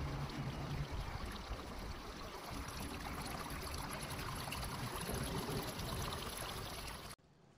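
Steady rush of water running off the glass of rooftop solar panels; it cuts off abruptly about seven seconds in.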